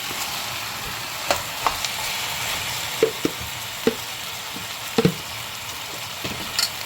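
Chicken sizzling in a hot pan while it is stirred, with a steady frying hiss and about six short knocks of the stirring utensil against the pan.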